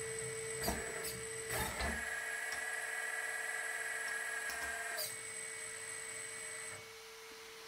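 Small electric-driven hydraulic pump of a 1/14 RC excavator running with a steady high whine. From about two seconds in to about five seconds in it takes on a higher, strained tone, with a few sharp clicks around those changes, and it gets quieter near the end.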